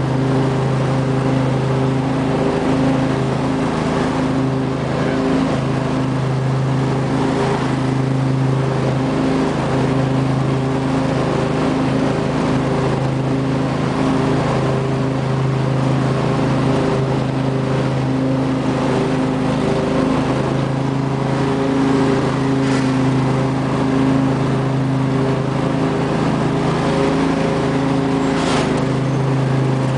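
A 2005 Husqvarna lawn tractor's 24 hp Briggs & Stratton V-twin engine running steadily at a constant speed while the tractor mows. There is a brief click near the end.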